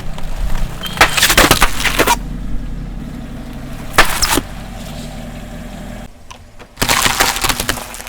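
A car's tyre crushing brittle objects: three bouts of cracking and crunching, about a second in, about four seconds in and near the end. The car's engine runs with a low hum underneath until about six seconds in.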